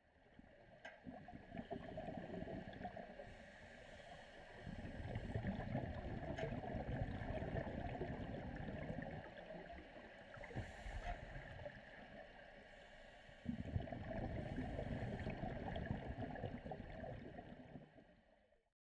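Scuba regulator heard underwater: air rushing and gurgling out as bubbles in long bursts, as the purge button is pressed to clear the regulator. The last burst starts suddenly about thirteen seconds in.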